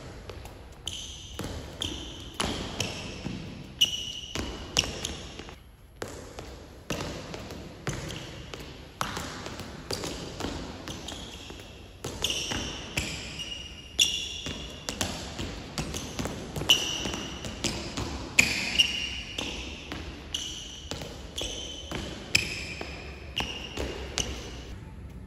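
Sneakers squeaking on a sports-hall court floor, with repeated soft taps and thuds of a footbag being kicked and the player's feet landing, in an irregular run of short knocks and quick high squeaks. A low steady hum lies beneath.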